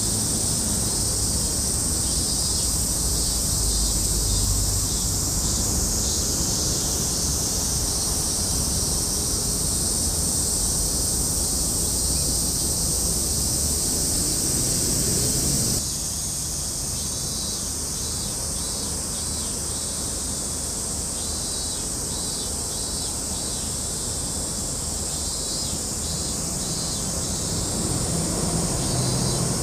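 Steady outdoor ambience: a continuous high-pitched insect drone over a low rumble of wind on the microphone. The sound changes abruptly about halfway through, where the recording is cut.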